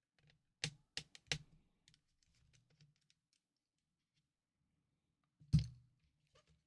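Small plastic parts of a Nintendo DSi XL shell clicking and tapping as they are handled: a quick run of three sharp clicks about a second in, faint ticks after, then a louder knock with a dull thud near the end.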